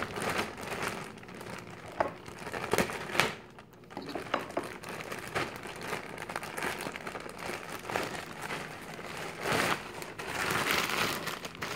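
Thin clear plastic packaging bag crinkling and crackling as it is handled and pulled off a handbag, with a brief lull about three and a half seconds in.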